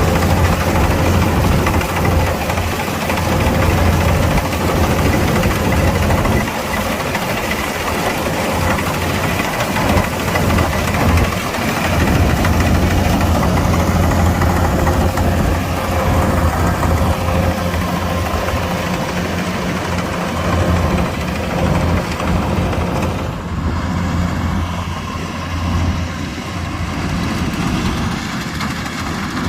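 Kubota DC-105X combine harvester running steadily: a low diesel engine drone with a steady machinery whine above it.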